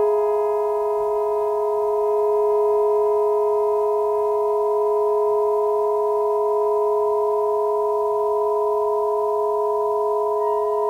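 Just-intonation drone from saxophone quartet and electronics: a chord of several pure, steady tones held without change. About ten seconds in, a few fainter, higher tones enter.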